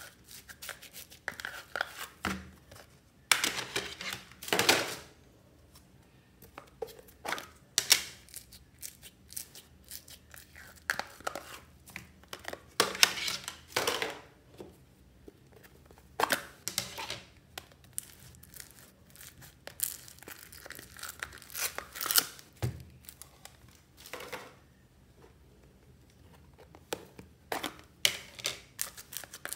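Foam-bead slime (floam) being squeezed and pulled out of plastic tubs and dropped into a plastic basin: irregular bursts of crackling and sticky tearing as the foam balls and slime are handled, with short quiet gaps between.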